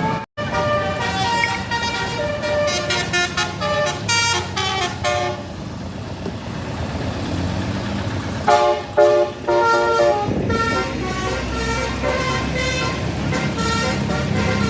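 Tour bus 'telolet basuri' multi-note horn playing a stepping tune of sustained notes, loudest about nine seconds in, over the bus's engine running.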